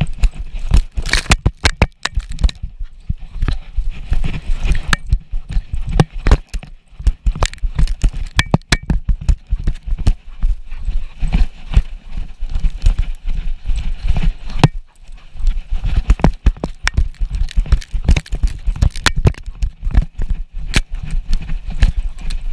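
A dog's paws thumping and scuffing over snow at a run, heard from a camera riding on the dog, so every stride comes through as close, irregular knocks and clicks. The footfalls briefly stop about two-thirds of the way in.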